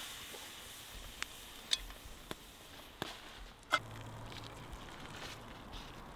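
Faint sizzling and crackling of a campfire under cooking pots, broken by a few sharp clicks and a louder knock a little after halfway, like a metal camp pot being handled by its wire bail.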